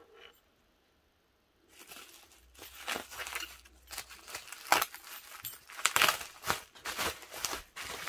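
Bubble-wrap plastic mailer being slit open with a small box cutter and pulled apart: plastic crinkling and tearing with many sharp crackles. It starts about two seconds in and grows louder toward the end.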